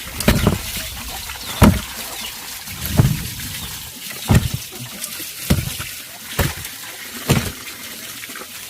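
Water splashing in a steady rhythm: seven heavy splashes, roughly one every second and a bit, over a continuous trickle.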